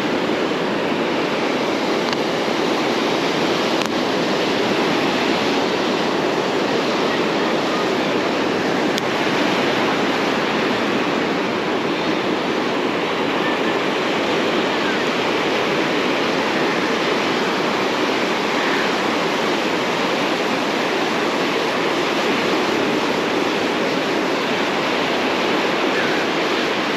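Steady, unbroken rush of ocean surf breaking on a sandy beach.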